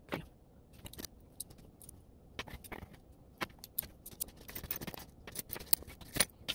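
Small pieces of costume jewelry and beads clicking and clinking as they are handled and set down on a tabletop, in quick irregular taps that get busier after about two seconds.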